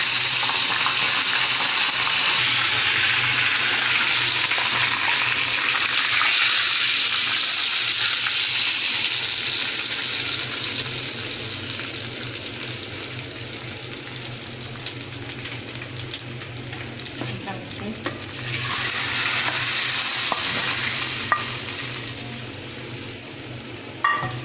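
Hot oil tempering (tadka) sizzling hard in a frying pan after curry leaves are added to fried onion, garlic, dried red chillies and cumin. The sizzle fades about halfway through, swells again briefly later, and a spoon clicks a couple of times near the end, over a steady low hum.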